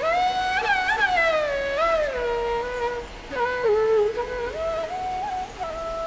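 Relaxing background music: a single slow melody of long held notes that slide smoothly between pitches.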